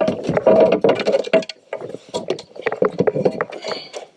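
Clattering, clicking and knocking of gear being handled on a plastic fishing kayak, busiest in the first second and a half and then in scattered knocks.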